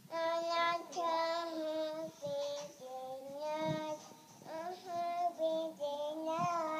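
A toddler girl singing a song in a high voice, drawing out long held notes in a few short phrases with brief breaks between them.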